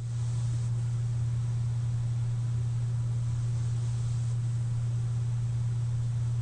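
CPAP machine running: a steady low hum with an even airy hiss of airflow and no breathing rhythm or snore heard.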